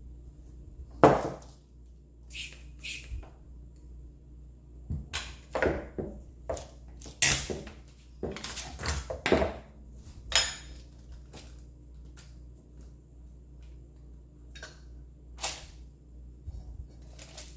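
Kitchenware being handled: a series of irregular clinks and knocks, the loudest about a second in and a cluster between about five and ten seconds in, over a faint steady low hum.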